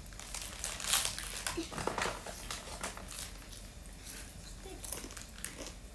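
Crackers being crunched as they are eaten and a plastic snack bag rustling: a string of small crisp clicks and crackles, with a couple of brief soft vocal sounds.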